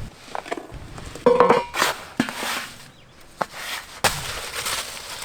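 Scattered knocks and clicks of kitchen handling, with a louder, brief ringing clink about a second and a half in.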